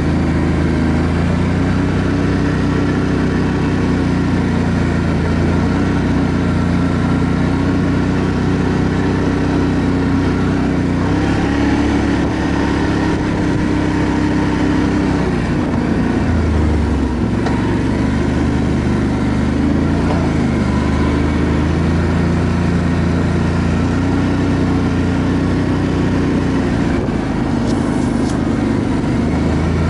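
ATV engine running loud and steady while riding, its pitch shifting up and down with the throttle.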